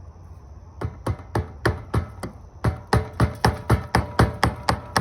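Hammer blows, about four a second with a short pause partway, driving the 2005 Dodge Ram 1500's fuel pump locking ring back into place. Each blow is a sharp metallic strike with a brief ring.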